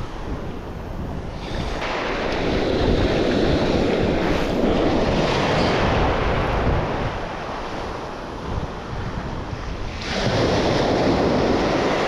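Sea surf breaking on the shore, with wind buffeting the microphone. The wash swells loud about a second and a half in, eases off, and swells again near the end.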